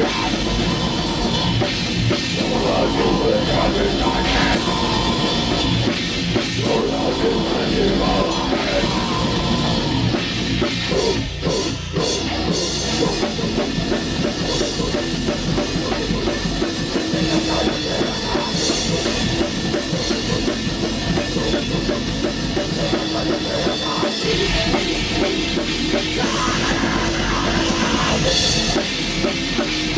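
A three-piece band playing black metal live: drum kit and distorted guitar, loud and dense throughout, with a short dip in the playing at about eleven seconds in.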